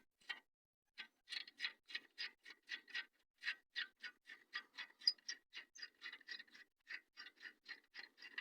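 Ratchet wrench clicking in a quick, even run, several light clicks a second starting about a second in, as it works a rusted nut on an exhaust pipe joint.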